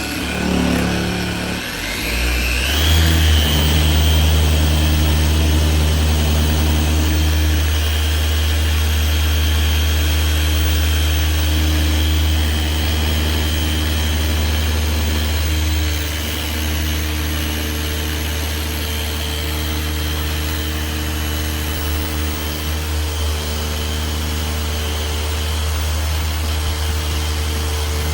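Dual action polisher running with a polishing pad on a headlight lens. About two seconds in its motor whine rises as it speeds up, then it runs steadily with a low hum, dipping slightly in level around sixteen seconds in.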